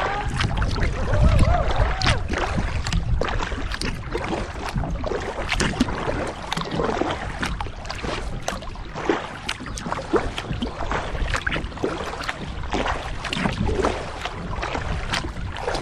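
Kayak paddling: many short, irregular splashes and drips of water from the paddle strokes over a steady low rumble.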